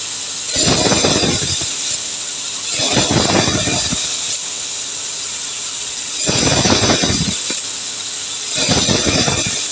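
Woodworking machine running with a steady high hiss, and four louder bursts of cutting noise, each lasting about a second.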